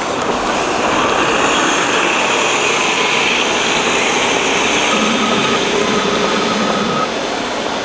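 A 2012 Nova Bus LFS Articulated city bus, powered by a Cummins ISL9 diesel, passing close by and pulling away. Its engine runs with a steady hiss, and a faint high whine comes and goes in the second half.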